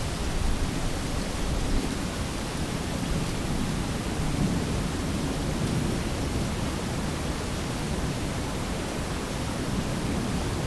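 Steady low rushing noise, heaviest in the low end, with no distinct knocks, footsteps or calls standing out.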